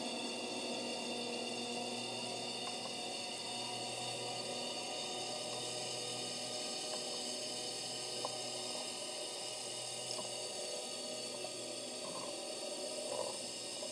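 Steady mechanical hum made of many constant tones, picked up by a camera sealed in an underwater housing, with a few faint ticks in the second half.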